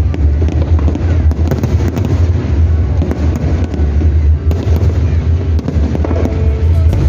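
Aerial fireworks going off in quick succession: a dense run of bangs and crackles over a continuous deep rumble.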